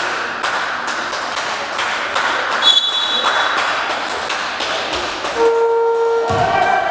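Basketball gym din: a steady run of sharp taps through the hall, a brief high tone about two and a half seconds in, then a short lower steady tone about five and a half seconds in, followed by a thump and other pitched tones near the end.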